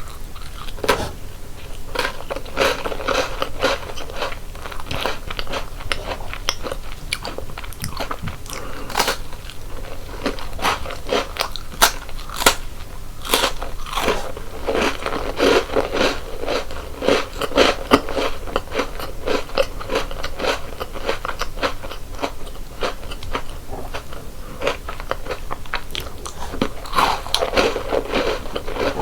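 Close-miked biting and chewing of crunchy chocolate snacks: a steady run of sharp crunches and crackles with wet chewing between them.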